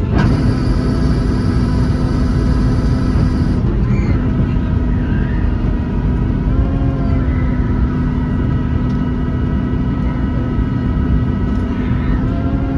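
Cabin noise of a Boeing 737-800 on the ground after landing: a loud, steady low rumble with whining tones from its CFM56 engines, which dip and recover briefly about six and a half seconds in. A high-pitched whine runs over the first three or four seconds and cuts off suddenly.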